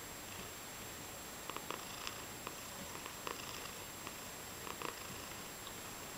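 Tabby cat purring steadily while chattering at the same time: short clicky chatters come every second or so, often two or three in quick succession.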